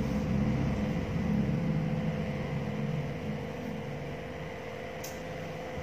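Steady low mechanical hum, a little quieter in the second half, with a brief faint click about five seconds in.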